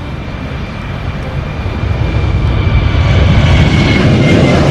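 Twin-engine jet airliner taking off at full thrust: a loud, dense jet roar that grows louder from about two seconds in as the plane lifts off and passes, with a thin high whine above it that fades near the end.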